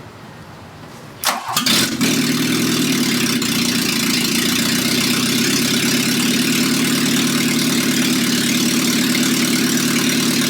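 1979 Volkswagen Rabbit's four-cylinder gasoline engine starting about a second and a half in, then running loud and steady with its exhaust blowing straight out of the manifold, the downpipe removed.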